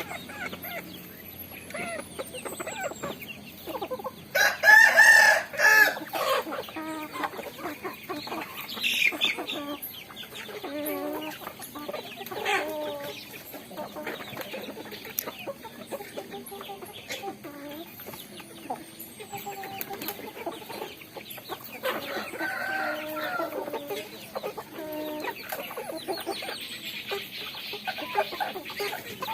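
Chickens clucking as they eat rice, with short calls repeating throughout. About four to six seconds in, a rooster crows once, the loudest sound of the stretch.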